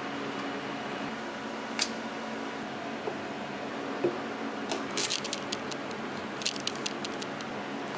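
Kitchen knife cutting garlic cloves on a plastic cutting board: a single tap about two seconds in, then a cluster of quick taps of the blade on the board from about five to seven seconds. A faint steady hum runs underneath.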